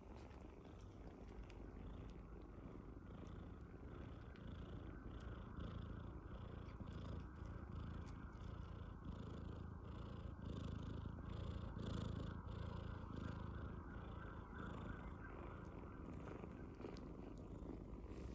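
A nursing British colorpoint mother cat and her kittens purring: a steady, soft, low purr with faint light clicks about twice a second.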